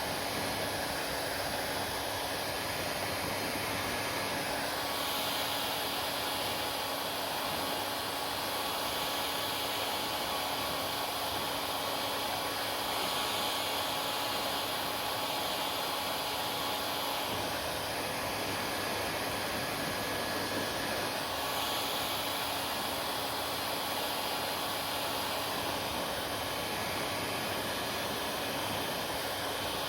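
Hair dryer running steadily: a constant rush of blown air with a faint steady motor whine.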